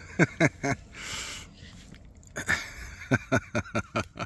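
Italian greyhound whining in short, falling whimpers, in two runs of several each, with a breathy rush of air about a second in.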